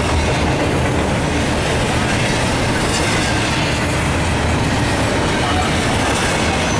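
Double-stack intermodal well cars rolling past on steel wheels, a steady rumble of wheels on rail.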